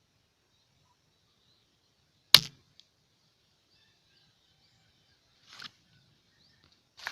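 A single sharp shot from a Sharp Ace multi-pump air rifle about two seconds in, followed by two much softer brief clacks later on.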